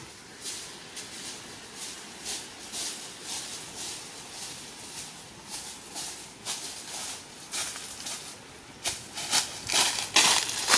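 Footsteps crunching through dry fallen leaves, about two steps a second, getting louder near the end as the walker comes closer.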